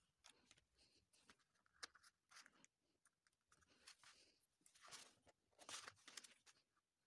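Faint, scattered clicks, taps and rustles of wooden ice cream sticks being handled, glued with a hot glue gun and set down on a cardboard sheet.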